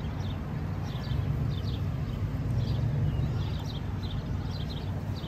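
Birds chirping in short repeated high calls over a steady low hum.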